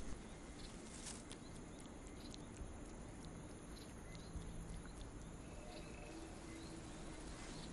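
Faint rainforest-floor ambience: a steady low background with scattered soft clicks and rustles in the undergrowth.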